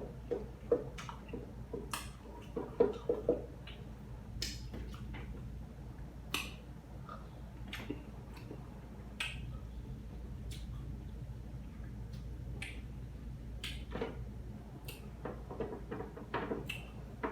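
A person chewing a mouthful of food close to the microphone, with scattered wet mouth clicks and smacks. They come thickest in the first few seconds and again near the end, over a low steady hum.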